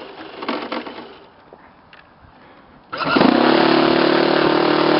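Quiet for about three seconds, then a radio-controlled model airplane's small engine comes in suddenly and loud, running steadily with an even buzzing note.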